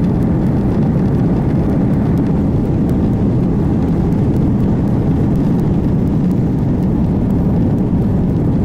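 Steady, loud low rumble of a jet airliner that cuts off abruptly at the end.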